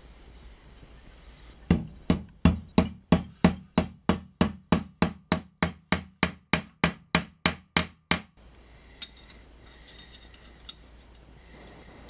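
Small hammer striking a steel pin on the anvil of a bench vise, joining a steel bar to a small plate for a handmade OTF knife mechanism. About twenty sharp, even metal-on-metal blows come about three a second, then stop, and a couple of light clicks follow.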